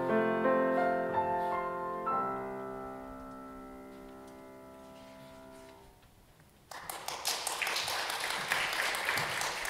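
Grand piano playing the closing bars of a choral song, ending on one held chord that fades away. After a moment of near silence, about seven seconds in, the audience starts applauding.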